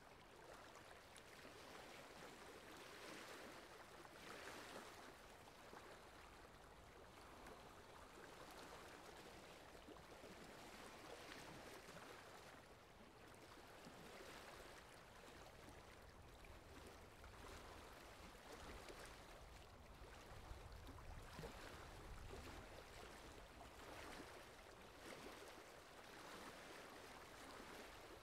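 Faint wet squelching and sloshing of mud and water as hands dig and scoop through a muddy hole, coming in irregular swells every second or two.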